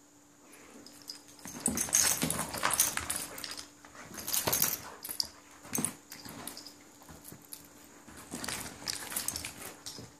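A dog shaking and chewing a plush Mr. Bill toy. From about a second and a half in there is an irregular run of rustling and knocking, loudest early on.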